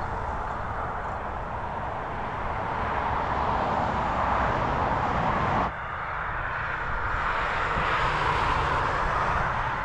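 Steady rumbling, rushing noise of a moving train, which changes abruptly about six seconds in.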